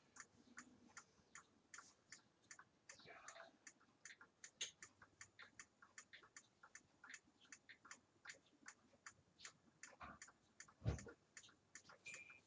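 Faint, steady ticking of a wall clock in a quiet room, with a dull thump about eleven seconds in.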